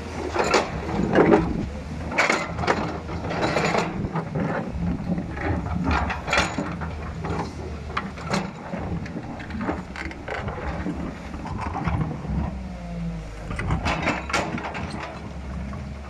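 Heavy earth-moving machine at work: a steady low diesel engine rumble under a run of irregular clanks, knocks and scrapes of metal on rock and soil.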